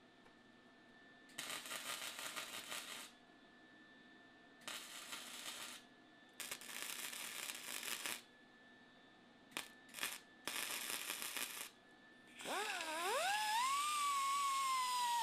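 Wire-feed welder welding steel: a crackling hiss in six bursts, most of one to two seconds and two very short. About twelve seconds in, a pneumatic die grinder spins up with a rising whine and runs steadily at high pitch while grinding steel.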